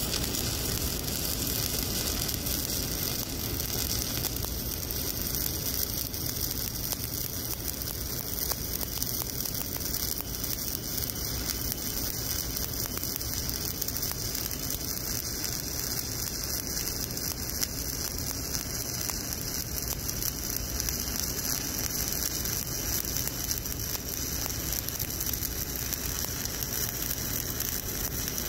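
Shielded metal arc (stick) welding with an E7018 electrode, laying a fill pass in a horizontal groove joint: the arc gives off a steady, even crackling sizzle.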